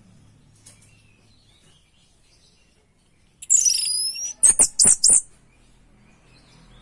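Orange-headed thrush (anis merah) singing a short phrase about three and a half seconds in: two high whistles falling in pitch, then four sharp, loud notes in quick succession. The bird is in song after its moult.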